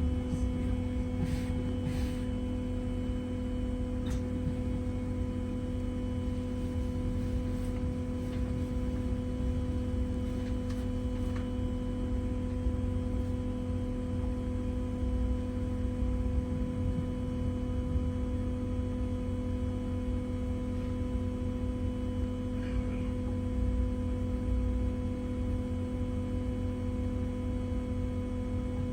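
Steady electrical hum with a low rumble inside a standing Wright Gemini 2 hybrid double-decker bus, its pitch unchanging throughout, with a few faint clicks.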